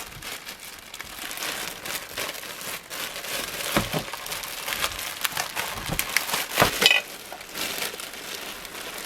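Packaging crinkling and rustling as fan parts are unpacked by hand, with a couple of light knocks partway through.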